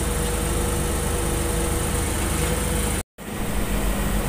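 Diesel engine of a Komatsu GD535 motor grader running steadily as it spreads aggregate base. The sound drops out completely for a moment about three seconds in, then resumes.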